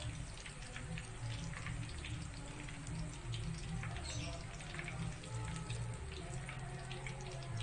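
Hot oil sizzling and crackling in a wok as battered chicken-and-cheese fritters deep-fry, with background music.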